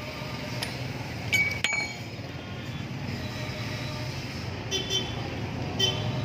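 A few sharp metallic clinks of metal tools or parts knocking together, two of them ringing briefly about a second and a half in and a small cluster near the end, over a steady low background rumble.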